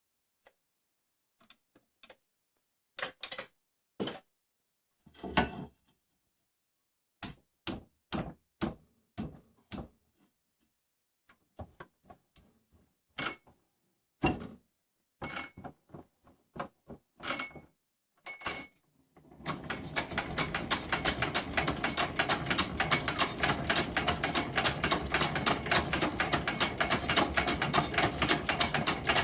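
Scattered single metal clicks and knocks, then, about two-thirds of the way in, an antique hand-cranked, self-feeding drill press starts turning: a continuous fast clicking clatter of its gears and automatic feed ratchet as it drills into metal.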